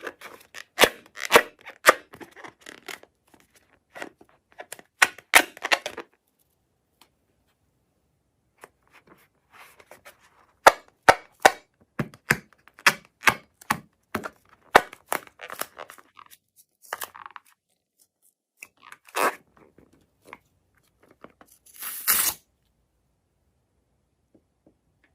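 Crafting noises from handling balloons and slime: many sharp snips, clicks and crackles in irregular clusters, with a pause of a couple of seconds after about six seconds in and a short rasping burst near the end.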